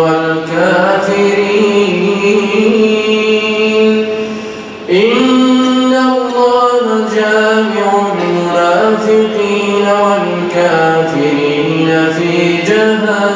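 A man reciting the Quran aloud in melodic tajweed chant, drawing out long held and gliding notes. The phrase fades out just before five seconds in, and a new one starts sharply on a higher note.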